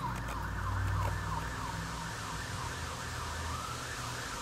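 Emergency-vehicle siren, first in a fast repeating yelp, then switching to a slow rising wail about three seconds in. A low hum runs underneath in the first couple of seconds.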